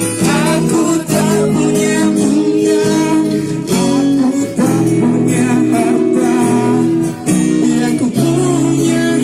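A singer's voice with strummed acoustic guitar accompaniment.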